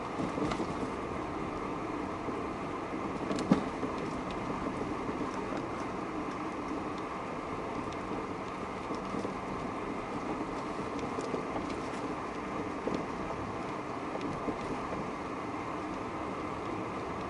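Steady road and tyre noise inside a moving Chery Tiggo 7 crossover, with one sharp knock about three and a half seconds in and a few faint ticks.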